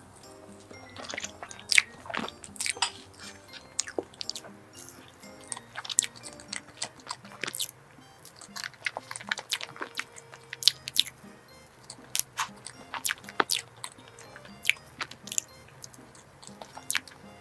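Close-miked eating of a creamy strawberry dessert: irregular bites and chewing with sharp clicks and some crunch, over soft background music.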